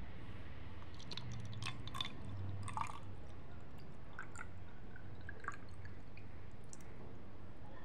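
Water poured from a glass into a small glass jar, trickling and dripping with scattered plinks and small splashes as small fish are tipped in. A faint steady low hum runs underneath.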